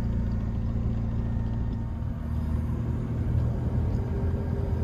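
McLaren 570S twin-turbo V8 running steadily with a low, even engine note. About four seconds in, a thin higher steady tone joins it.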